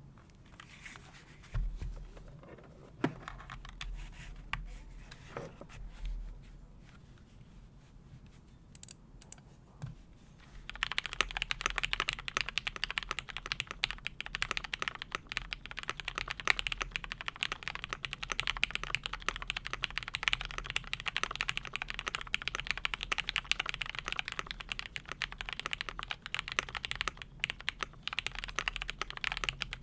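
Typing on a Keychron V1 mechanical keyboard with lubed Cherry MX Hyperglide Black linear switches, a steel plate, a tape mod and doubleshot Cherry-profile keycaps. There are a few scattered soft knocks at first, then continuous fast typing starts about a third of the way in.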